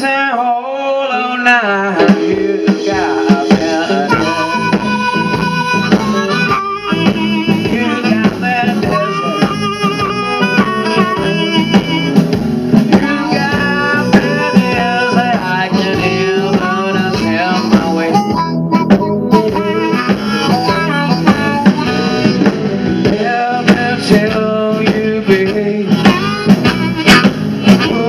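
Blues band playing live, led by an amplified harmonica cupped against a microphone, over electric guitars and a drum kit.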